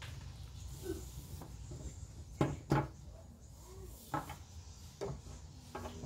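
A red kernmantle climbing rope being handled and set down on a tabletop: a few short dull knocks, two close together near the middle, over a steady low hum.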